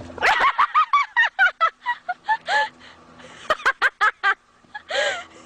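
A bird calling in quick runs of short, bending notes: a fast series at the start, a pause about midway, another quick run, then one longer call near the end.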